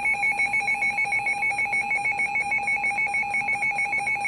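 Emergency alert attention signal opening a severe thunderstorm warning: a shrill electronic two-tone warble, pulsing rapidly and evenly.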